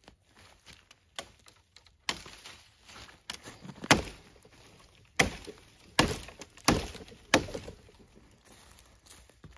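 Worktuff Gear Mountain Lion Gen2 knife chopping through a thin branch: about eight sharp chops into the wood. The loudest comes about four seconds in, and the last four follow evenly, less than a second apart.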